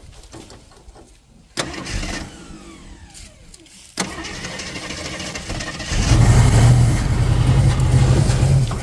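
1967 AMC Rogue's 290 V8 being cranked over by its starter, with a first attempt that winds down and a second that catches about six seconds in. The engine then keeps running loudly with a steady low note.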